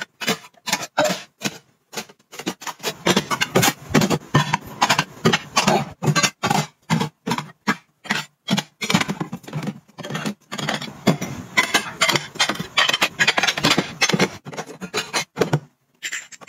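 Ceramic plates and bowls clinking and scraping against one another and against the drawer dividers as they are set upright and stacked: a fast run of clinks and knocks broken by short silent gaps.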